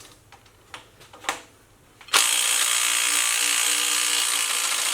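A few light clicks, then about two seconds in an impact wrench starts hammering steadily on the crankshaft bolt of a Ford 302 V8 and runs for nearly three seconds, stopping just before the end as the bolt breaks loose.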